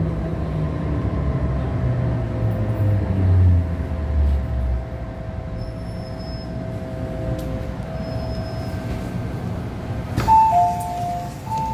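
MTR M-Train's traction motors whining in a falling pitch as the train brakes, the whine cutting out about five seconds in as it slows to a stop. About ten seconds in, the two-note door chime sounds.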